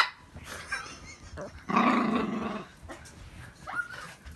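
Toy poodle giving a sharp huff at the start, then a rough, low growling grumble lasting about a second.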